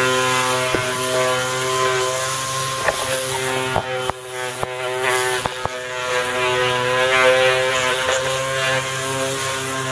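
Cordless orbital sander running steadily with an even motor whine while it sands the surface of a PVC pipe tee, roughing it up to give fibreglass resin a tooth. A few sharp clicks come in the middle.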